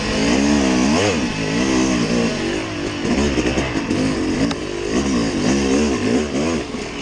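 Off-road vehicle engine revved up and down over and over, its pitch rising and falling about once a second.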